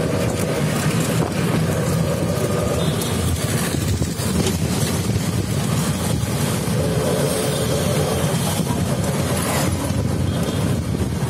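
Steady engine drone and road rumble of a small passenger vehicle, heard from inside the open-sided cabin while riding. A humming tone in the engine sound rises and falls.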